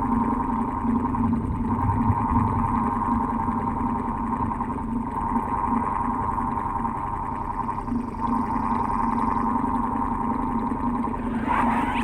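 Old electric fan running: a steady low hum under a higher whirring tone that briefly dips about every three seconds.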